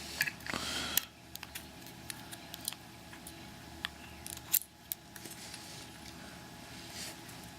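Light metallic clicks and small rattles of lock pins and picking tools being handled while a Mul-T-Lock 7x7 pin-tumbler cylinder is taken apart. The clicks come irregularly, busiest in the first second, with one sharper click about four and a half seconds in.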